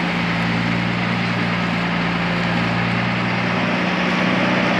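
Unimog expedition truck's diesel engine running at a steady pitch as the truck drives slowly along a rough track, growing slightly louder as it approaches.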